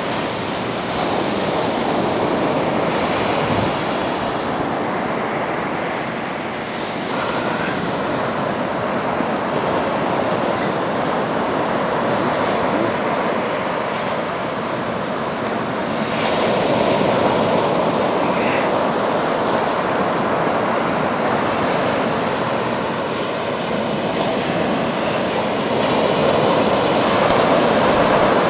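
Atlantic Ocean surf breaking on a sandy beach: a continuous wash of waves that swells as each set comes in, loudest near the end.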